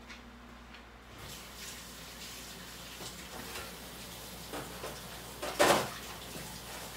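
Cookware being handled at the kitchen stove, with small knocks and one loud metal clank a little before the end. A low steady hiss starts about a second in.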